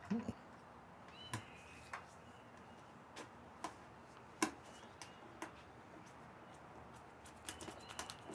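Scattered light clicks and knocks of metal hardware and parts being handled, about a dozen, irregular, with a sharper knock at the start and a quick cluster near the end, plus a brief high squeak.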